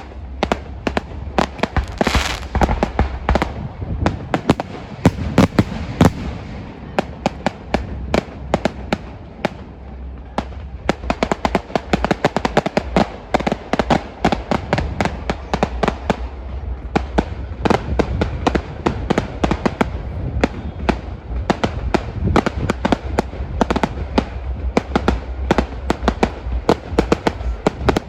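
Fireworks display: a dense, irregular barrage of sharp bangs and crackling shells bursting in quick succession, many overlapping, over a steady low rumble.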